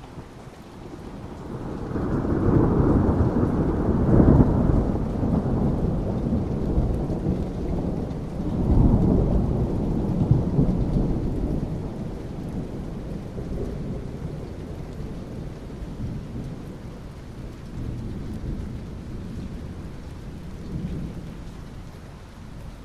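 Rolling thunder over steady rain falling on asphalt. The deep rumble builds about two seconds in, swells again a few seconds later, then slowly dies away under the rain.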